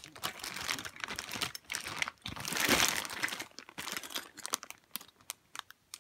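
Clear plastic bag full of Beyblade parts being handled, crinkling on and off, loudest about halfway through and dying away near the end.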